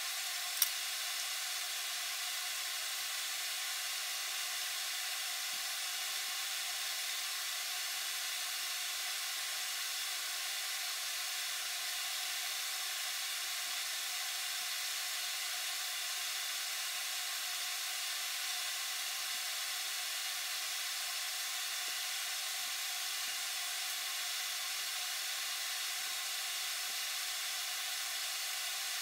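Steady, even hiss that does not change throughout, with a single sharp click about half a second in.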